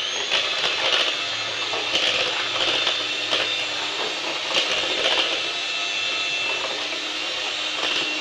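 Electric hand mixer running at a steady speed, its beaters whipping eggs with sugar in a bowl: an even motor whine over a churning rattle, with scattered light knocks.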